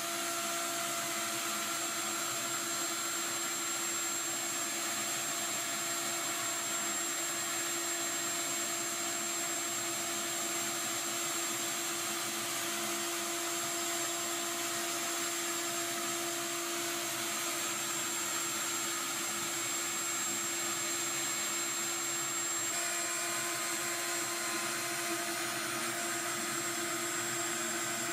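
CNC milling machine spindle running at steady speed with a high whine while a conical bullnose cutter mills a lithophane relief into a white plastic sheet, over an even hiss of cutting. The whine shifts slightly in pitch about two-thirds of the way in.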